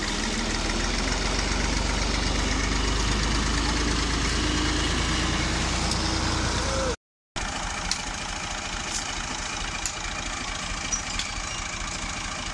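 Massey Ferguson MF 240 tractor's three-cylinder diesel engine running steadily. About seven seconds in, the sound cuts out for a moment and comes back quieter, with a few light clicks.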